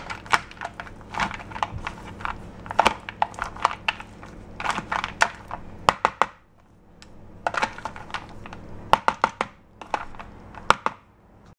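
Metal spoon stirring chocolate baking melts, butter and peanut butter in a clear plastic bowl: a run of clicks and scrapes as the spoon knocks against the bowl and the hard chocolate wafers, with a short lull a little past the middle.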